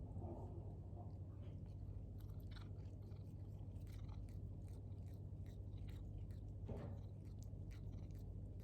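A cat chewing and crunching food: many short, irregular crunches, over a steady low hum.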